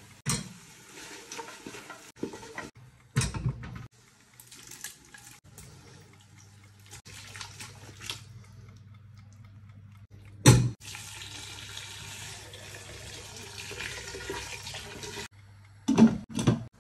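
Water running into a stainless steel cooking pot in stretches, with loud metal clanks of the pot and its lid, the last cluster as the lid is set back on.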